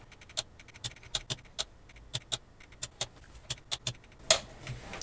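A run of sharp plastic clicks at uneven intervals as the power to a NAD T748 AV receiver is switched by hand again and again at its mains plug and front panel, with a slightly longer, louder click-and-rattle about four seconds in. The receiver stays in standby, so no power-on relay click follows.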